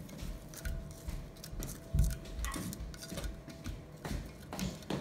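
A spoon scraping and tapping ground spices off a dish into a food processor bowl: irregular light clicks and scrapes, the loudest knock about two seconds in.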